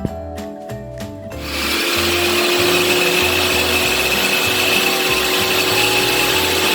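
Background music with mallet-like notes, then an electric power tool starts about a second in and runs steadily and loudly, with the music's bass line still going underneath.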